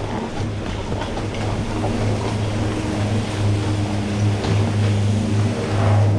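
A steady low mechanical hum with evenly spaced overtones, under a continuous rushing noise with scattered faint clicks.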